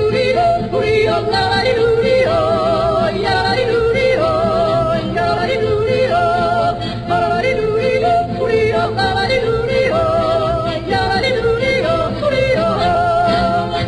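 Music with a solo singing voice, its pitch wavering with heavy vibrato over a steady low accompaniment.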